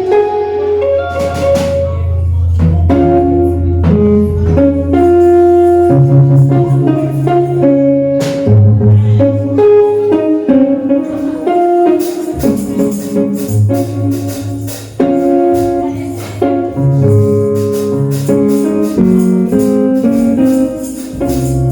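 Live church praise music with keyboard chords over a held bass line, joined by tambourine shaking in rhythm about halfway through.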